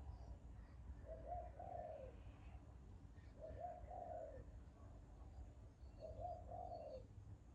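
Bird giving a low two-note call, a short note then a longer one, three times about two and a half seconds apart.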